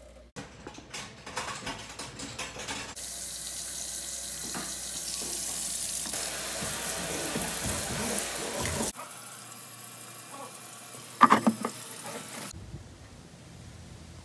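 Water spraying from a pull-down kitchen faucet's sprayer head into a stainless steel sink, a steady hiss for about six seconds that cuts off suddenly. Before it come scattered clicks and knocks of the faucet being handled, and a single sharp knock, the loudest sound, comes near the end.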